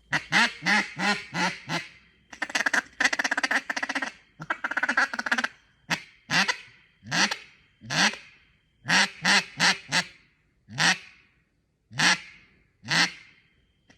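3D-printed duck call blown in a string of quacks. It starts with a quick run of about five quacks, then two stretches of fast chatter, then single, evenly spaced quacks.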